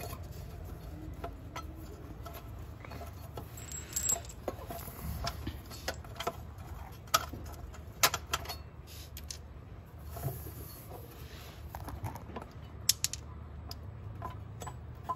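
Scattered small clicks, taps and scrapes as an automatic transmission pan held by a stuck gasket is worked loose by hand, with three sharper clicks about seven, eight and thirteen seconds in. A low steady hum runs underneath.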